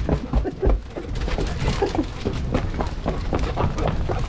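Irregular crunching footsteps on gravel and knocks and rubbing on a body-worn camera, over a low rumble.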